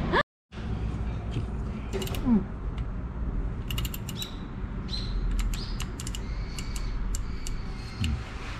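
Ratchet head of a torque wrench clicking in short runs of quick clicks as the wrench is handled.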